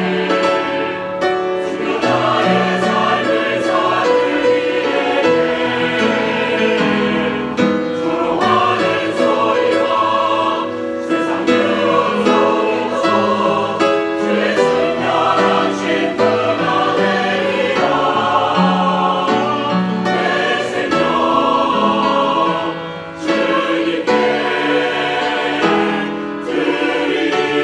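Mixed choir of men's and women's voices singing a sacred choral piece in sustained chords, with a brief break between phrases late on.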